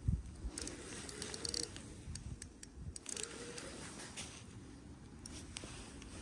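Spinning reel being wound in against a hooked carp, giving scattered light clicks and rattles with clothing rustle, after a single knock right at the start.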